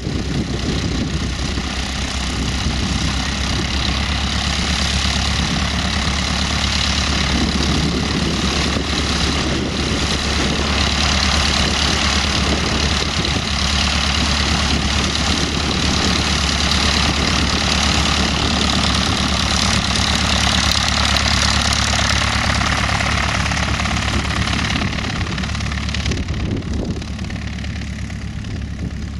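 Van's RV-6A homebuilt plane's piston engine and propeller running steadily at taxi power as it passes close by, easing off a little near the end as it moves away.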